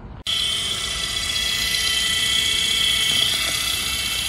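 Makita cordless drill spinning a drill-driven transfer pump, pumping gear oil into the car's differential: a steady high-pitched whine that starts abruptly just after the beginning and holds at one speed.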